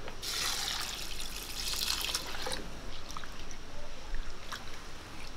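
Water poured from a clay bowl onto urad dal in a clay pot for about two and a half seconds, then a hand swishing and rubbing the dal in the water, with small splashes and trickles.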